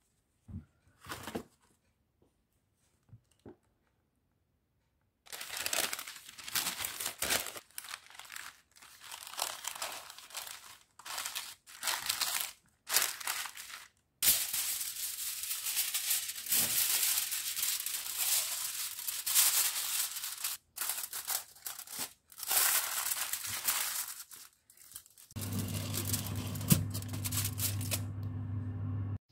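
Parchment paper and aluminium foil crinkling and rustling in irregular bursts as they are pressed down and tucked over a baking tray. A low steady hum starts near the end.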